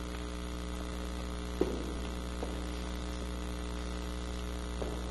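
Steady electrical mains hum with a stack of overtones, and a few faint knocks about a second and a half in and later.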